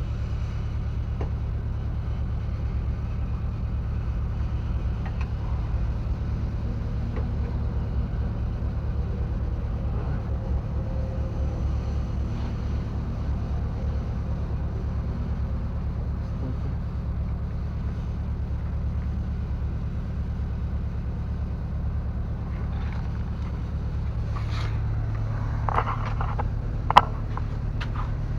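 A steady low engine drone with a fine even pulse runs throughout. Near the end come a few short metallic clanks and one sharp click.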